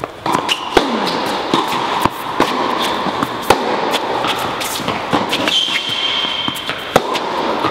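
Tennis balls struck by rackets and bouncing on an indoor hard court during a baseline rally: sharp hits and bounces every second or so, echoing in the large hall.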